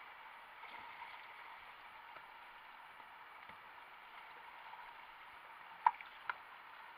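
Steady rush of river rapids around a whitewater kayak, with two sharp knocks about half a second apart near the end, the first louder.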